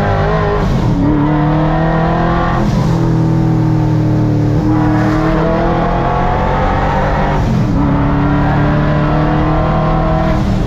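ProCharger-supercharged 1970 Chevrolet Chevelle engine pulling hard, heard from inside the cabin. Its note climbs and falls back several times as it accelerates.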